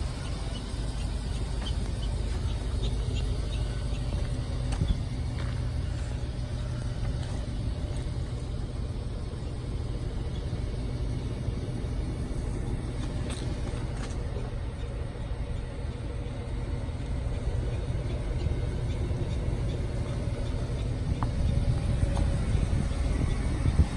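Engine of a 2003 Chevy-chassis Collins small school bus idling steadily, a low, even drone.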